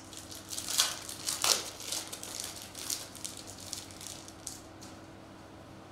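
A foil trading-card pack wrapper being torn open and crinkled by hand: a run of crackling rustles, loudest in the first second and a half, dying away after about four and a half seconds.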